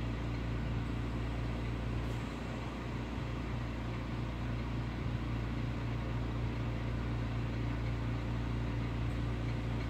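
A steady low hum with a constant hiss behind it, unchanging throughout.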